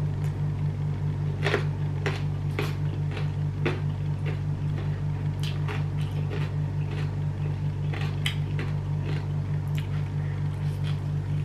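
Close-up eating sounds: chewing, with irregular short crunches and wet mouth clicks as beef rib and food are bitten and chewed, over a steady low hum.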